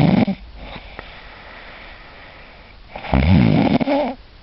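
A sleeping person snoring loudly. One snore ends just as it begins, then after a quieter pause a second long snore of just over a second comes about three seconds in. Nudging has not stopped it.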